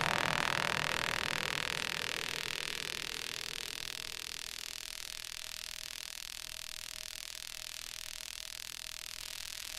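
Steady hiss with a faint hum, as a louder sound fades away over the first four seconds or so.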